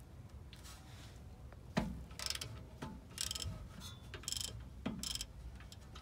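Socket ratchet wrench clicking in four short bursts of back-and-forth strokes, with a few sharp metal knocks, as a rear brake caliper bolt is worked loose.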